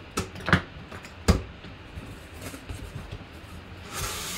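Corrugated cardboard box being opened by hand: a few sharp knocks and taps on the box, the loudest about a second in, then the scrape of a cardboard flap being pulled open near the end.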